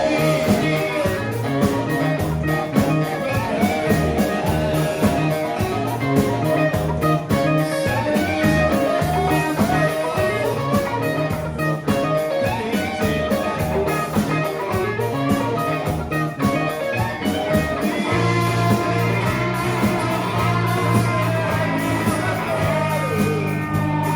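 A live band playing bluesy rock, with guitar leading over a steady drum beat.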